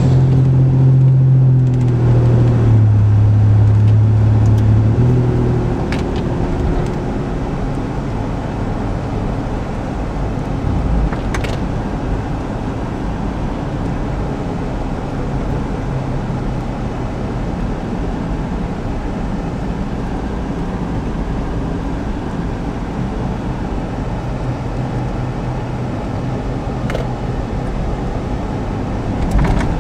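Steady engine and road noise heard from inside a moving vehicle on a downhill road. For the first five seconds a louder engine hum, dropping slightly in pitch partway through, comes from a heavy truck passing close alongside.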